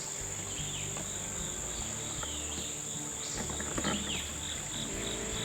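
Woodland insects droning: a steady high-pitched buzz with a rapid, evenly pulsing chirp beneath it, and a couple of faint short chirps near the middle.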